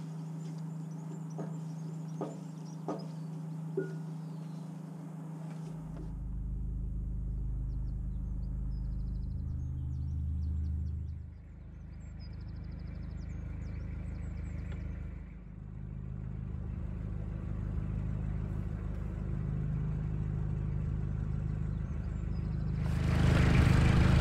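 A narrowboat's diesel engine running steadily at cruising speed, a low hum that shifts abruptly in pitch and level a few times. There are a few light clicks in the first few seconds, and the sound grows louder near the end.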